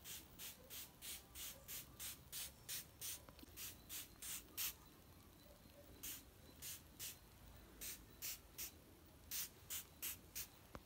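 Spray bottle spritzing: many quick, short sprays in runs of several, about three a second, with a pause of about a second near the middle.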